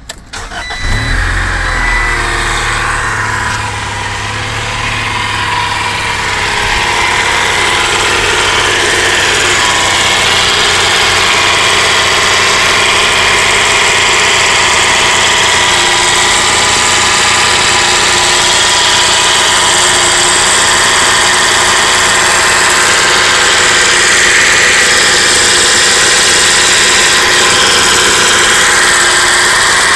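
A 1995 Acura Integra's B18B 1.8-litre four-cylinder engine starts about a second in and then runs steadily. It carries a strange noise that the owner suspects comes from the cam gear.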